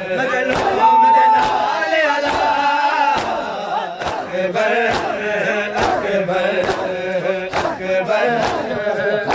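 Crowd of mourners doing matam, hands slapping their chests together in a steady beat about every three-quarters of a second, under men's voices chanting a noha. A long held high note sounds over them for about two seconds near the start.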